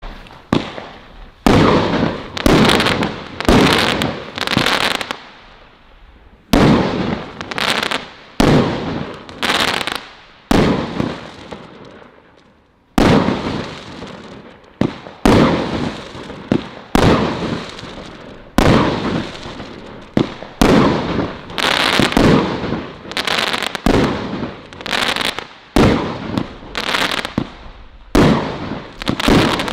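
Celtic Fireworks "Colour Crackles" multi-shot firework firing shot after shot. Each shot is a sharp bang followed by a spray of crackling that dies away within about a second, with brief lulls between volleys.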